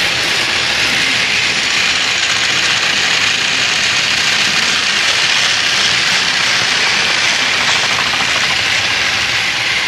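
Battery-powered TOMY/Trackmaster toy trains running on plastic track: the steady mechanical whir of their small motors and wheels, close by.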